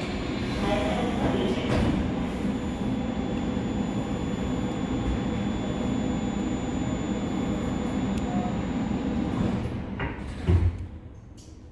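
Inside a new Seoul Subway Line 4 electric train car: steady running rumble of the train after the doors have closed. A single thump comes about ten and a half seconds in, after which the noise drops quieter.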